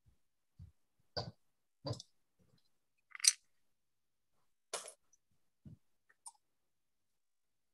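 A handful of scattered small clicks and soft knocks, the sharpest about three seconds in: desk and handling noise.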